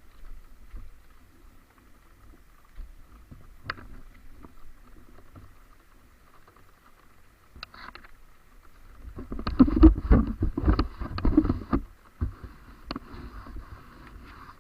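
Honda CRF trail motorcycle being ridden in the rain: a low steady rumble with a few sharp clicks, broken about nine seconds in by some three seconds of loud rumbling and rapid knocks.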